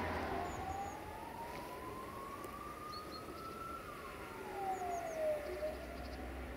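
A siren wailing: its pitch rises slowly for about four seconds, then falls away, over a low rumble. A few faint high chirps come through.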